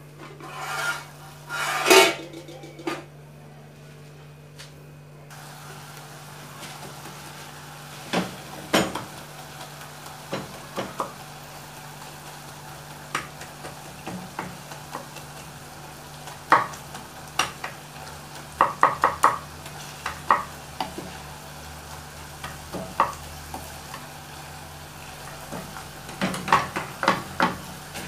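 Meat and chopped tomatoes sizzling as they fry in a saucepan, stirred with a wooden spoon that knocks against the pan again and again, sometimes in quick runs of taps. The sizzle starts about five seconds in.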